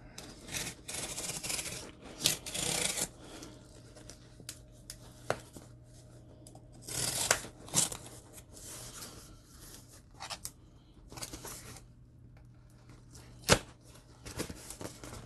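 A knife blade slitting packing tape and cardboard on a shipping box, with the box rubbed and handled: scratchy rasping and tearing in uneven stretches. A single sharp click about 13.5 seconds in is the loudest sound.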